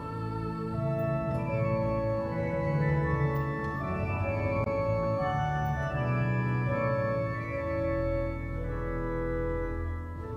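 Background organ music: slow, sustained chords with a melody moving above them about a note a second.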